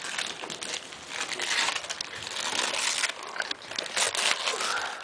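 Gift wrapping crinkling and rustling in irregular bursts as it is torn open and handled.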